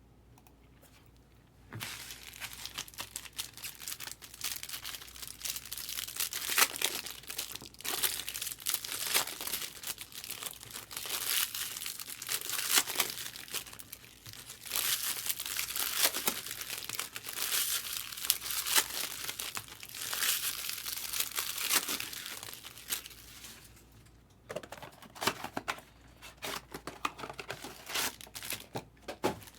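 Baseball card pack wrappers crinkling and tearing as packs are ripped open and handled. It starts about two seconds in and runs in dense, crackly spurts, with a short lull near the end.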